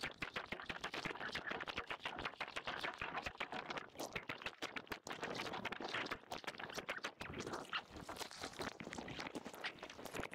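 Dense, irregular crackling and fizzing of churned water and bubbles, heard through the camera's microphone while it is submerged in the surf.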